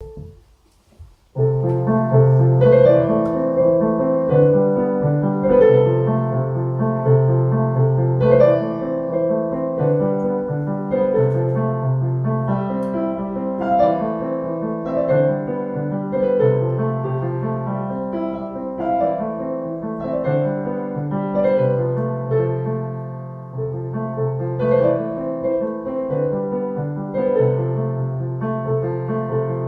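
Solo piano playing a piece: chords and a melody over a recurring low bass note, starting about a second and a half in.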